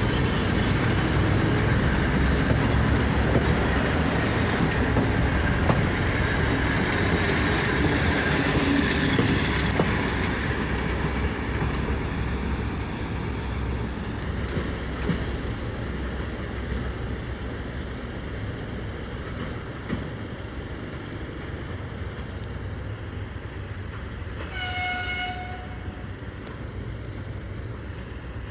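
Diesel train made up of a 2M62 locomotive and DPL1 cars pulling out, its wheels on the rails and diesel engine noise fading steadily as it moves away. About 25 s in, the train sounds one horn blast of about a second and a half.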